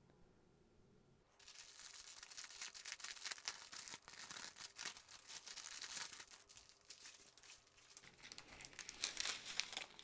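Clear plastic bag crinkling and rustling as hands pull it open and handle the strip of sealed drill packets inside, starting about a second and a half in.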